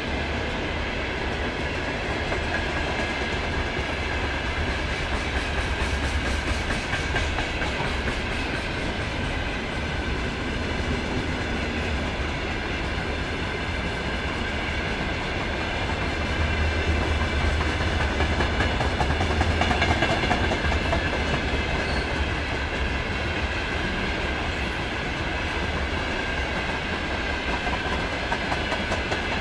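Open gondola wagons of a long freight train rolling past, a steady rumble and clatter of steel wheels on the rails, swelling a little louder just past the middle.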